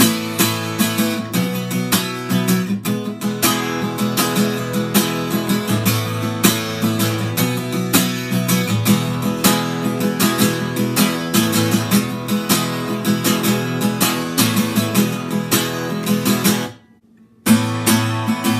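Steel-string acoustic guitar with new D'Addario EXP19 strings in standard E tuning, strummed hard and fast in a loud chord pattern. The strumming stops briefly near the end and then starts again.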